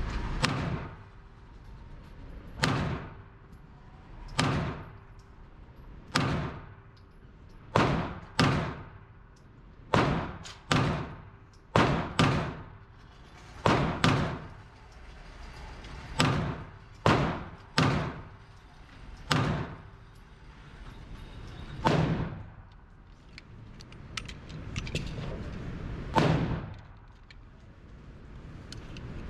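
Gunshots in an indoor shooting range: about seventeen sharp reports at an uneven pace, one to three seconds apart, each with a short reverberant tail, and a longer pause before the last two.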